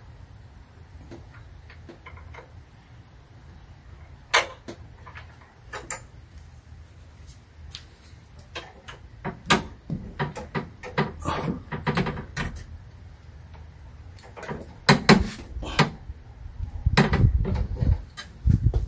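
Metal clicks and knocks from a socket and wrench being fitted and turned on a bolt in a car engine bay, a few scattered at first and coming thick and fast in the second half. A muffled low rumble near the end.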